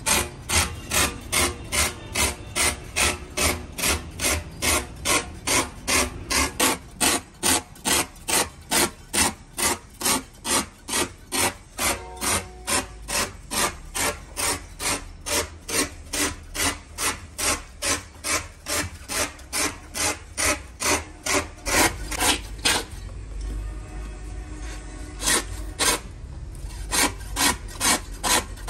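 Hand tool rasping in steady back-and-forth strokes, about two a second. The strokes pause for a few seconds near the end, then start again.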